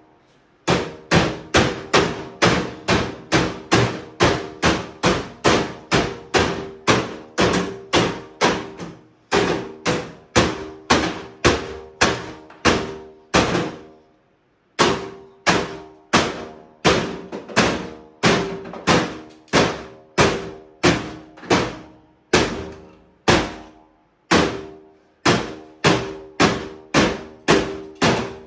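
A hammer striking a hard casing again and again, about two blows a second, each blow ringing briefly, with a few short pauses between runs of blows.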